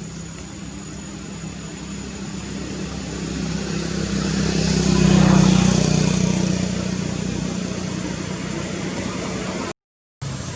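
A motor vehicle engine passing by: a steady hum that grows louder to a peak about halfway through, then fades. The sound cuts out completely for a moment near the end.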